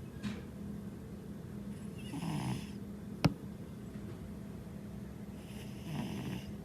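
A heavyset American Shorthair cat snoring in its sleep: two snoring breaths about four seconds apart. A single sharp click comes between them.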